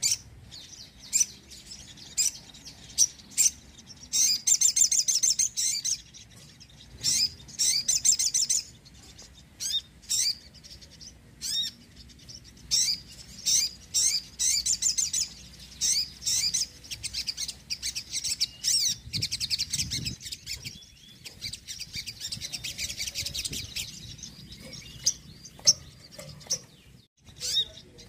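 Crimson sunbird singing: high-pitched sharp chirps and fast, rattling trills in repeated bursts with short pauses, the longest trilled runs at about four and eight seconds in and again past twenty seconds.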